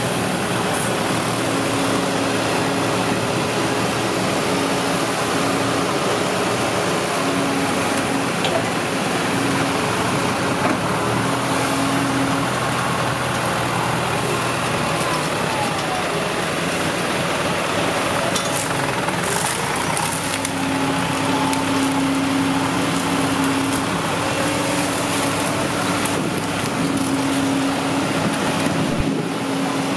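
Kobelco SK140 tracked excavator's diesel engine running under hydraulic load while its arm pushes against a palmyra palm, a steady drone with an engine tone that comes and goes.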